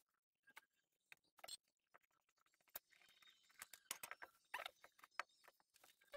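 Faint scattered clicks and light metal knocks, busiest around the middle, as a valve spring compressor is taken off a motorcycle cylinder head and the head is handled and turned over.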